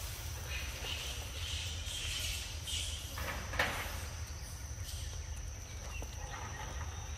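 Outdoor ambience: a steady low rumble with a thin, steady high whine, a few faint high chirps in the first half, and a brief rustle a little past halfway.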